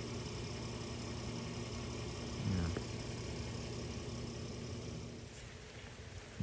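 A motor vehicle's engine idling with a steady low hum, easing off slightly about five seconds in.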